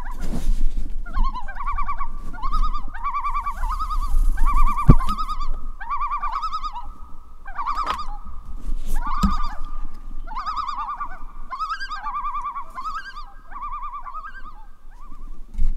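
Common loons giving tremolo calls, a rapid quavering laugh repeated over and over by more than one bird, overlapping. Two sharp knocks, about five and nine seconds in.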